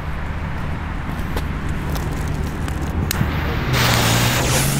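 A jet torch lighter clicks on about three seconds in and hisses loudly as its flame is held to a firecracker's fuse, which starts to sputter and spark.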